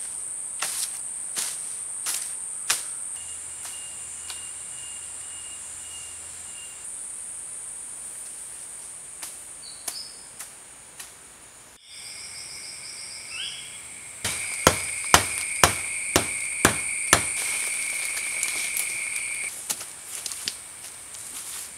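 Forest insects calling steadily in high, unbroken buzzes. Sharp knocks cut across them: a few near the start and a quick run of about eight, roughly half a second apart, in the second half.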